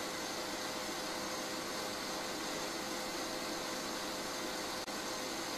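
Electric stand mixer running steadily at speed, a constant motor hum with a steady tone, whisking meringue mix as it thickens toward stiff peaks.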